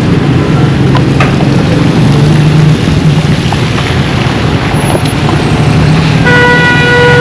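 Roadside traffic: a motor vehicle's engine running close by, with a vehicle horn sounding once for about a second near the end.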